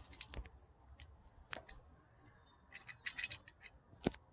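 Small metal door-lock parts clicking and scraping against each other in short clusters as they are lined up and fitted together, with one sharper knock near the end.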